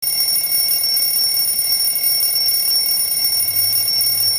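Alarm-style phone ringtone: a steady, high-pitched electronic tone held without a break.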